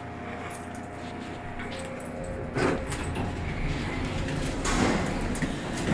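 Elevator in use: a low rumble from the moving car sets in about two seconds in, with brief swooshes as its sliding doors move.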